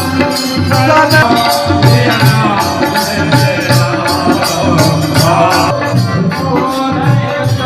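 Devotional music: a voice singing a wavering melody over percussion that keeps a steady beat of short jingling strokes.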